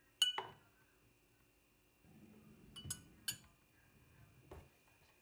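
Tableware clinking: two sharp clinks near the start, three more around three seconds in, and a softer knock about four and a half seconds in, each ringing briefly.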